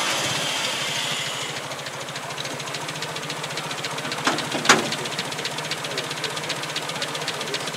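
Four-cylinder petrol engine of a 1948 pre-production Land Rover Series I idling with a fast, even ticking beat. The revs ease down over the first couple of seconds after starting, and there are a couple of sharper clicks near the middle.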